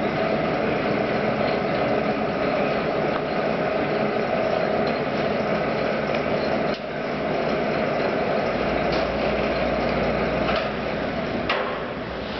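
LeBlond geared-head engine lathe running, a steady mechanical whir from its headstock gearing and drive. A low hum joins about two-thirds of the way in, and a few sharp clicks come near the end.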